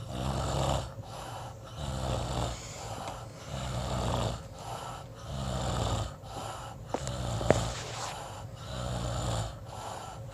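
Someone asleep snoring in a steady rhythm, a low rattling snore on each breath about every one and a half to two seconds. There are a couple of short clicks about two thirds of the way through.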